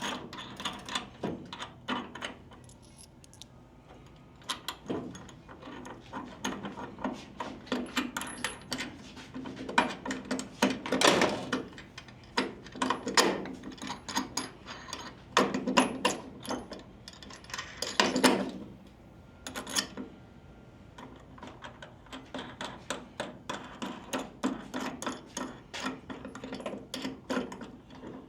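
Hand tools and steel hardware clinking and clicking as the chain tensioner is adjusted and tightened: a run of sharp metallic clicks, with louder clattering spells several times through the middle.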